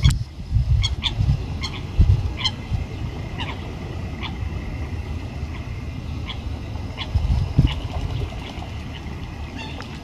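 Eurasian coots giving short, sharp calls: a quick run of them in the first few seconds, then scattered single calls, over a low, gusty rumble.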